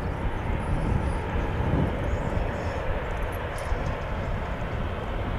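Wind buffeting the microphone over the steady rushing rumble of a distant jet airliner.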